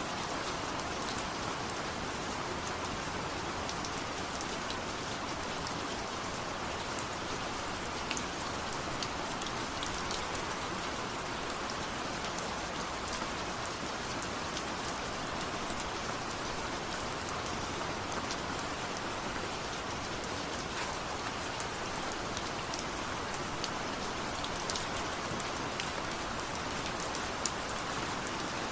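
Steady rain falling: a dense, even patter with scattered sharper ticks of single drops.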